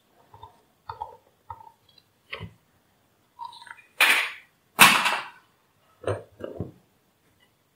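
Handling noise from a small power-supply circuit board and its wiring on a workbench: a series of short knocks and clatters, the two loudest about four and five seconds in.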